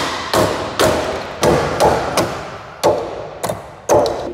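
A metal hand tool, a pry bar or hammer, striking the wooden shipping pallet under a rolling toolbox. About nine heavy knocks come at roughly two a second, each ringing briefly.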